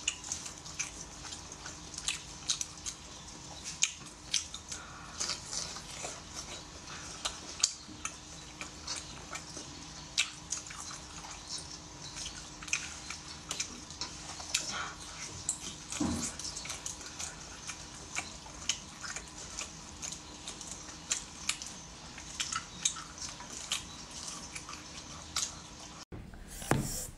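Close-miked, wet chewing and mouth sounds from eating saucy, chili-covered seafood: many short smacks and ticks at an uneven pace, with a faint steady hum underneath for the first half.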